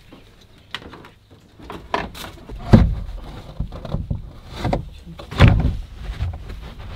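Irregular knocks, bumps and rattles of a van's plastic front headliner panel being worked loose by hand, with two heavier thumps, one near the middle and one later.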